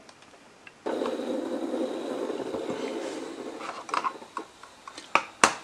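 Handling noise of a USB cable being plugged into an Arduino Nano on a breadboard and pulled across a wooden desk: a steady rustle for a couple of seconds, then several light clicks and taps, the last one the sharpest.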